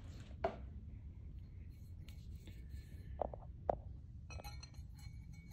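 Faint handling of small metal strut parts on a workbench: three light taps with a brief ring, then some soft scraping, over a steady low hum.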